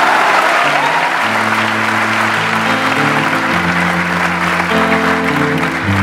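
A large audience clapping, mixed with background music of held notes that change every second or so.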